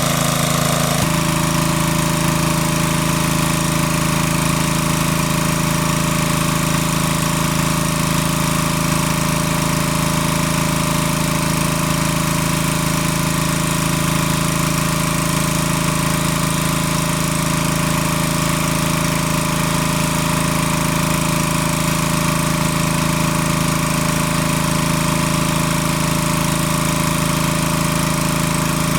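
Small engine of a water pump running steadily at a constant speed; the tone shifts slightly about a second in.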